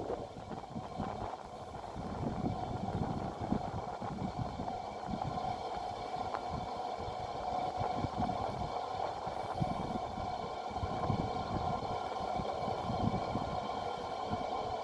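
A large electric fan, about 90 cm across and powered from a UPS's 60 Hz output, running steadily: a constant whine with several pitches over a rushing, buffeting air noise. The fan runs fairly quietly.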